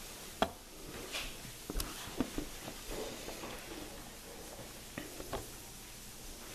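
Several scattered light knocks and taps over quiet room tone, the sharpest about half a second in and a pair near five seconds, with faint shuffling in between.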